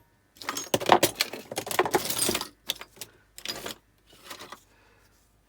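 Small pieces of scrap metal clinking and rattling as they are picked through and sorted by hand, in a run of jangling bursts that thin out and fade near the end.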